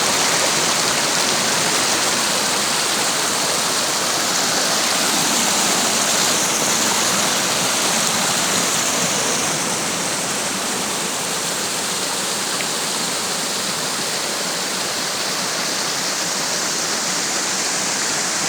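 Mountain water rushing steadily over a waterfall, a dense even hiss of flowing water that eases a little after about ten seconds.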